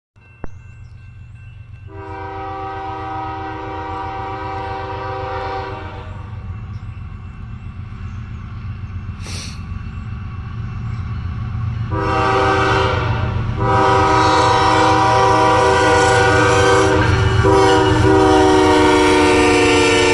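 A diesel freight train approaches and passes. The locomotive's air horn sounds a chord: one long blast about two seconds in, then three blasts close together from about twelve seconds in, over a rumble of diesel engines that grows louder as the locomotives come by. There is a sharp click at the very start.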